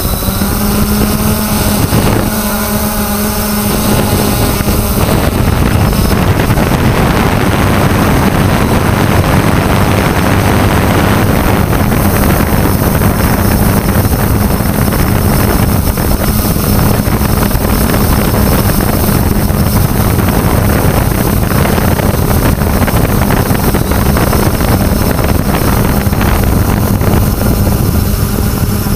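3DR Solo quadcopter's motors and propellers buzzing with a steady hum, heard through its onboard GoPro. About five seconds in, a loud rush of wind on the microphone rises and covers most of the hum as the drone flies fast.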